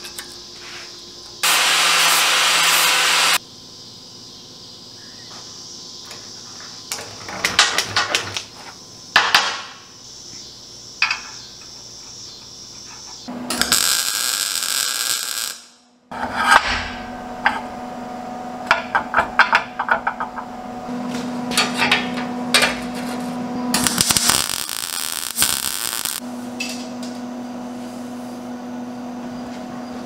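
Metal fabrication with a MIG welder: several short bursts of welding crackle, each starting and stopping sharply, with metal clanks and clicks from handling steel between them and a steady hum in the second half.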